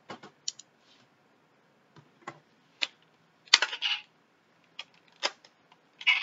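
Hard plastic toy parts clicking and clacking as a Power Rangers Ranger Key figure is folded and fitted into a toy weapon. A string of separate sharp clicks, with a quick loud cluster about three and a half seconds in and another click near the end.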